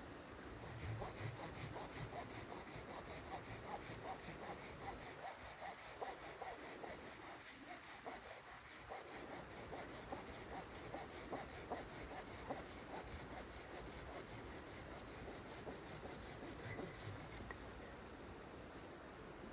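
Hand saw cutting wood in steady back-and-forth strokes, about three to four a second.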